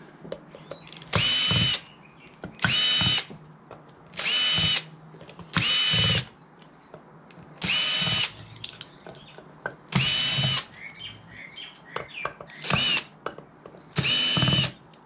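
Power drill-driver run in eight short bursts of about half a second each, a steady high whine that rises briefly as the motor spins up and drops as it stops, typical of backing out screws one after another.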